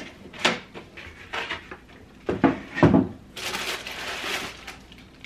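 A cardboard shoe box being opened and handled: several knocks and thuds, the heaviest about three seconds in. Then about a second of crinkly rustling as the wrapping inside is pulled open.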